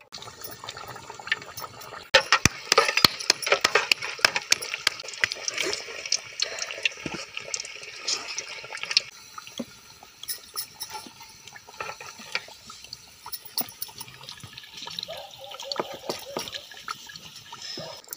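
Tikkiyan deep-frying in hot ghee: dense sizzling and crackling that starts about two seconds in and eases off after about nine seconds, with lighter bursts of sizzle later.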